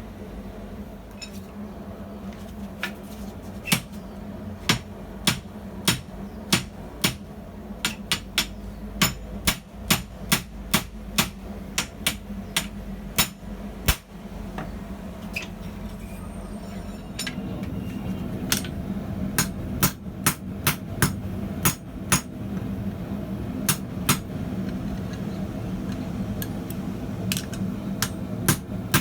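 Hammer blows on hot steel at the anvil: a long series of sharp metallic strikes at an uneven pace of one or two a second, over a steady low hum.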